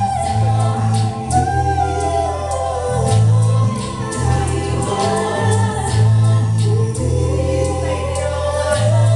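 A band playing a song live, with singing over sustained bass notes that change about every second and a regular beat.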